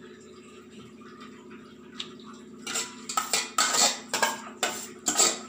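Dishes or kitchen utensils clattering: a quick run of loud, uneven knocks and scrapes starting about two and a half seconds in, over a low steady hum.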